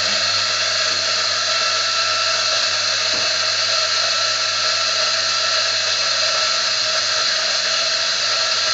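Mazzer Mini E espresso grinder running steadily through a timed dose of coffee beans, a constant motor hum.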